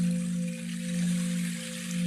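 Meditation bell ringing a sustained low tone that swells and fades about once a second, with a fainter higher overtone, over a steady soft hiss.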